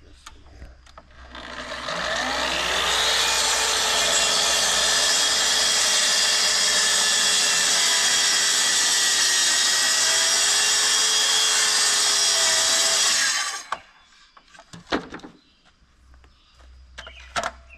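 Track saw starting up, its motor whine rising to speed about two seconds in, then the blade cutting steadily through lumber for about eleven seconds before the saw stops abruptly. Two short knocks follow near the end.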